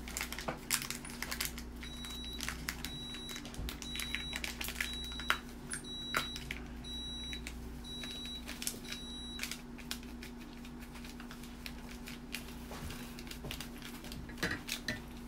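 Foil coffee sachet crinkling and clicking as it is torn open and the powder shaken into a glass of water. From about two seconds in until near ten seconds, an electronic beep sounds about once a second, eight times in all. A steady low hum runs underneath.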